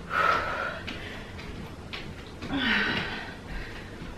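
A woman breathing hard from exertion mid-exercise, with two loud breathy exhales, the second about two and a half seconds after the first and carrying a slight voiced groan.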